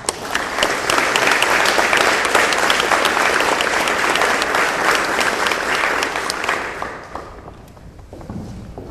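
Audience applauding: a dense patter of many hands clapping that dies away about seven seconds in.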